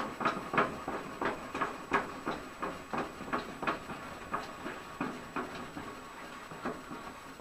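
Handwheel of a Jet JWTS-10JF table saw being cranked to move the blade mechanism, giving a steady run of clicks about three a second that get slightly quieter toward the end.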